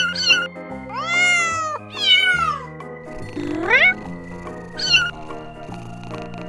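Young kittens mewing over background music: short mews at the start, two long mews about one and two seconds in that rise then drop in pitch, a rising cry between three and four seconds, and one short mew near five seconds, after which only the music goes on.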